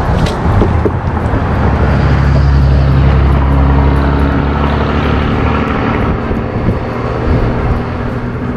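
A motor vehicle passing close by, its low engine hum building about two seconds in and fading after six. A short splash at the start as a magnet on a rope drops into the water.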